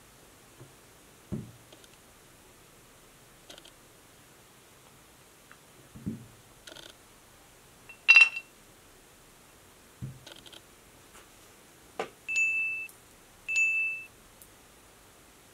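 Light taps and knocks as a metal corkscrew, corks and a small glass bottle are handled on a cloth-covered table. About eight seconds in there is a sharp glass clink, and near the end the glass twice gives a short, steady ringing tone.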